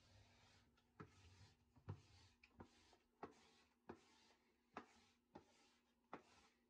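Faint, repeated strokes of a white plastic bathroom scraper dragged over a textured floor to gather dust: about nine short scrapes, roughly one and a half a second, each opening with a light click as the blade meets the floor.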